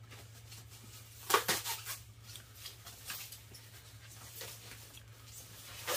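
Rustling and crinkling of a thin foam wrap bag being pulled off an electric guitar, in several short bursts, the loudest about a second in, over a steady low hum.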